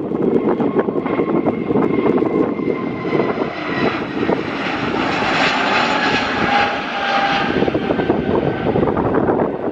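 Airbus A320neo's twin jet engines at takeoff thrust as the airliner lifts off and climbs past: a loud steady roar with a faint high whine, swelling to its loudest about halfway through.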